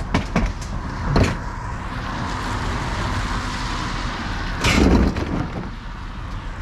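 Knocks and clatters of things being handled, over a steady hiss, with one louder thump and rustle about five seconds in.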